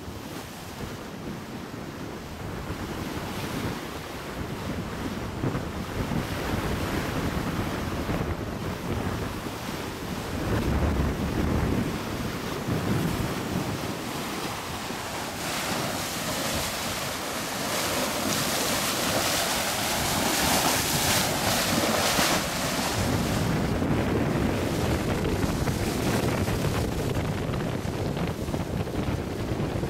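Sea water rushing and breaking along the hull of a Swan 86 sailing yacht moving fast under sail, with wind buffeting the microphone. The rush of water swells loudest about halfway through.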